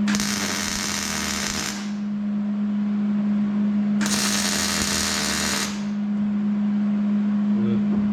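Two bursts of crackling welding, each lasting under two seconds, with a steady low hum underneath.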